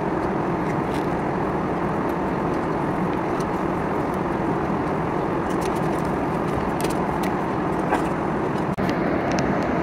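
Steady in-flight cabin noise of a Boeing 777, an even rushing hum, with a few faint crinkles of paper as a wrapped food item is opened.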